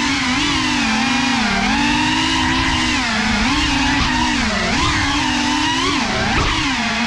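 FPV racing quadcopter's brushless motors and propellers whining steadily, the pitch dipping and climbing back several times with throttle changes, more sharply in the second half.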